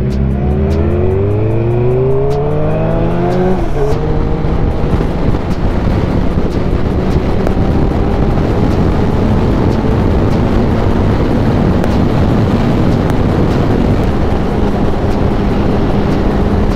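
Sport motorcycle engine accelerating hard, its pitch climbing for the first few seconds until an upshift drops it sharply, then pulling on at a steadier, slowly rising pitch under loud wind noise.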